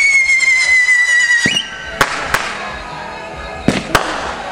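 Whistling firework shrieking for about a second and a half, its pitch sagging slightly before a quick upward flick as it ends, followed by four sharp firework bangs in two close pairs.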